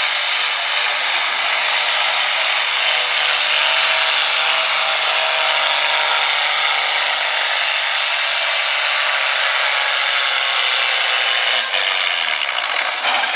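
Blue Ford farm tractor's diesel engine running flat out under heavy load as it pulls a weight-transfer sled, a loud steady mechanical noise that changes near the end as the pull winds down.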